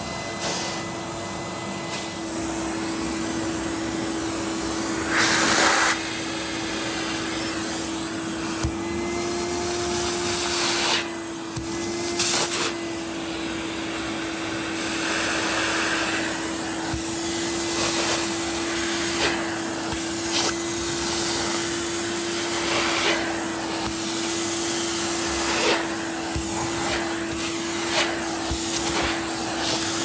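1993 Numatic Henry HVR200 cylinder vacuum cleaner with its two-stage motor running: a steady motor whine under a continuous rush of suction. The airflow swells into louder rushes a few times as the tool is moved and lifted, and short sharp ticks come in the later part.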